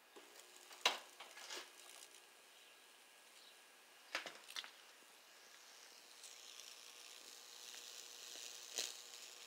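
Wood of a canoe paddle sizzling as neon sign transformer high voltage burns a Lichtenberg fractal through it, with a few sharp crackles along the way. The sizzle grows louder over the last few seconds.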